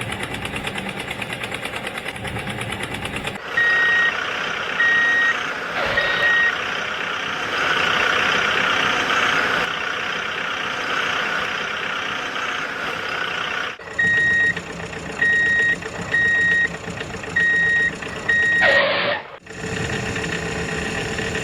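A vehicle's reversing alarm beeping, a short steady tone repeated about once a second, three times and later five times, over a running engine. The sound cuts off abruptly a few times.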